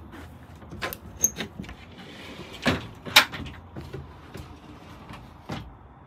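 Wooden cabinet doors with metal latches being unlatched and swung open: a series of clicks and knocks, the two loudest close together around the middle.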